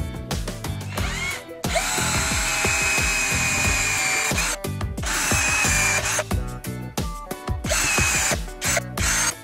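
Cordless drill spinning up and boring holes through a clamped wooden board, with a steady motor whine in three runs. The first run is the longest, at about two and a half seconds; the last is short, near the end.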